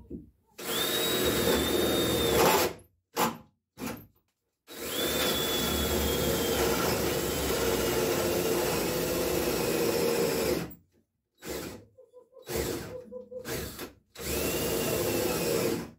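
Cordless drill boring oversized holes into an oak support beam, run in stops and starts. First a run of about two seconds, then two short blips, then a long run of about six seconds in which the motor's whine sags as the bit bites into the wood, and finally a few shorter bursts near the end.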